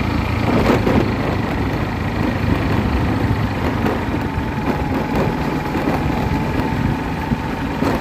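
An engine running steadily at an even speed, with a constant low rumble.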